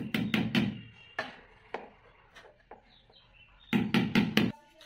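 Hammer driving the nails of plastic cable clips into a wall to fix an AC cable: a quick run of blows at the start, a few single taps, then another quick run of about five blows near the end.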